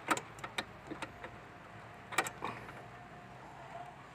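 Small wrench clicking against the brake line flare nuts on a new brake master cylinder as they are tightened: a few sharp metal clicks in the first second and two more about two seconds in.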